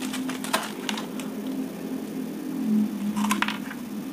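Handling noise from a plastic model kit: a clear plastic bag crinkling and the hard plastic parts runner clicking as it is turned in the hands, in a few short clicks and rustles, with a longer rustle about three seconds in.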